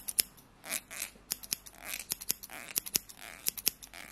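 Scissors snipping repeatedly close to the microphone: a run of sharp, quick snips with a few short swishes of the blades between them.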